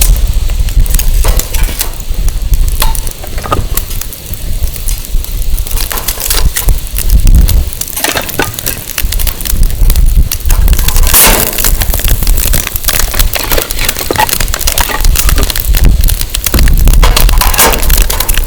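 Firewood burning in a campfire, crackling and snapping irregularly with some sharper pops. A low rumble of wind buffets the microphone throughout.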